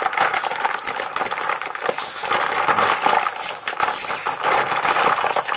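Plastic chip bag crinkling and crackling as it is gripped, twisted and pulled hard at the top to tear it open, without it giving way.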